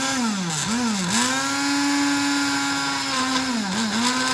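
Countertop electric blender running on a thick mix of raw cauliflower chunks, banana, milk and egg: a loud, steady motor whine that sags in pitch and recovers twice in the first second and again about three and a half seconds in.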